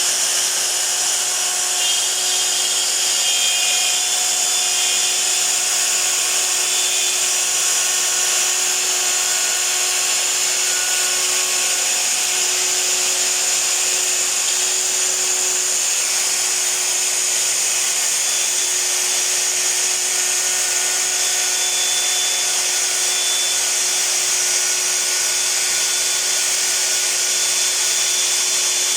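Festool hand router running at a steady high speed with a Leuco two-flute cutter, milling artificial acrylic (solid-surface) stone: a constant tone from the spindle under a steady cutting hiss. The cut goes smoothly, with no chatter.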